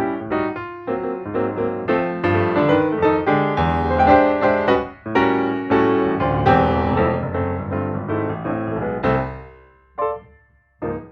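Background piano music, a busy run of notes that dies away about nine seconds in, followed by two short separate chords.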